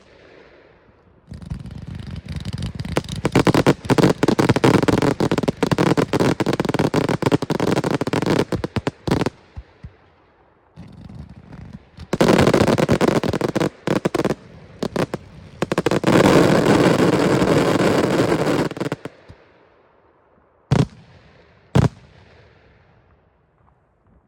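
Fireworks display firing rapid salvos of bangs and crackle in two long dense stretches, then two single loud bangs near the end that fade out.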